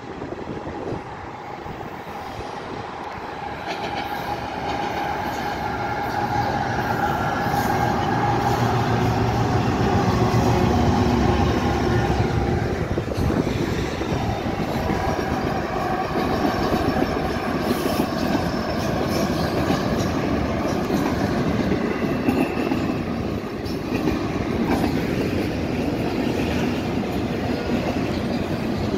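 A freight train's five diesel-electric locomotives (GE ET44AC and ES44ACs, an EMD SD75I) approaching and passing beneath, their engines growing to loudest about ten seconds in. After that comes the steady running and wheel noise of double-stacked intermodal container cars rolling by.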